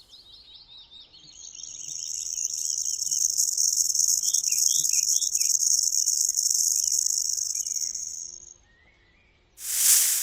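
Snake hissing: one long, even, high-pitched hiss that swells up, holds for several seconds and cuts off sharply, then a shorter, louder hiss near the end. Birds chirp faintly in the background.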